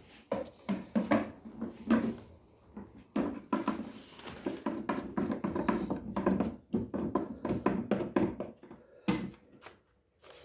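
Irregular clicks, knocks and rattles of a screwdriver working self-tapping screws out of a washing machine's plastic body, with the parts being handled.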